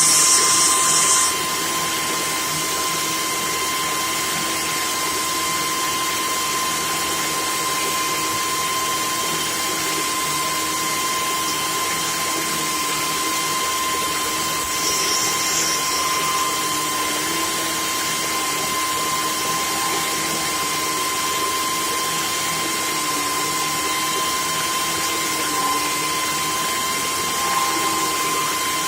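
Red upright vacuum cleaner running steadily with an even motor whine, with brief bursts of higher hiss twice, near the start and about halfway through.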